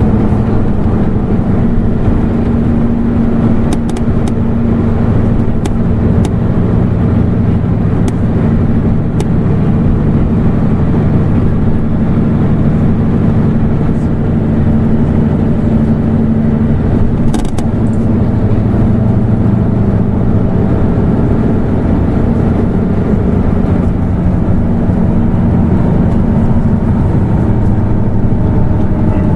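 Hino LNG-HU8JMGP hybrid city bus running under way, a steady engine drone with its pitch drifting slightly, and a few short clicks and rattles.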